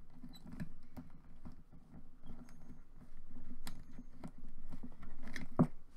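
Small clicks and scratches of a screwdriver and button cells being pushed into a plush toy's plastic battery holder. A sharper click comes near the end.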